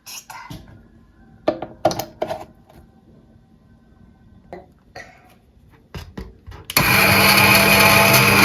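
A few clicks and knocks of something being handled, then, near the end, an electric motor appliance switches on suddenly and runs steadily at full loudness.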